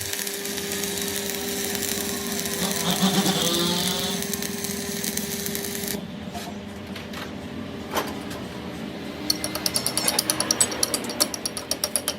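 Workshop machinery running with a steady hum for about the first half. Near the end a rapid, even mechanical knocking starts, about five blows a second.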